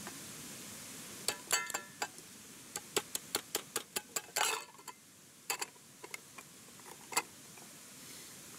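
A series of light, irregular clicks and clinks of small hard objects, about a dozen between about one and seven seconds in, a couple of them with a short ringing tone.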